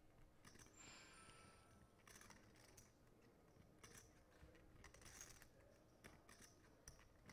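Near silence: faint room tone with a few soft, scattered clicks.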